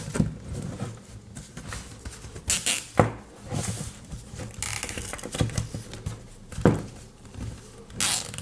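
Plastic zip tie and the object it is fastened around being handled: irregular rustling with a few sharp clicks, the strongest about three seconds in, again near seven seconds, and near the end.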